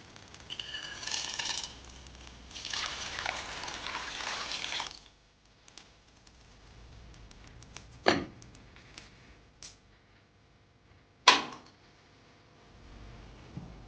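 Handling noises: two stretches of rustling noise, then two sharp knocks about three seconds apart, each with a short ring.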